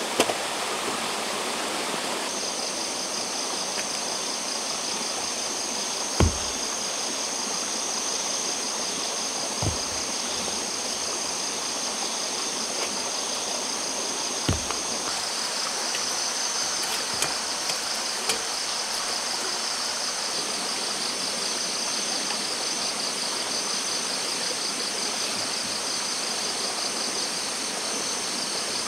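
A stream rushing steadily, with insects trilling in a fast pulsing chirr that starts a couple of seconds in. A few dull thumps of stones being set down on the ground.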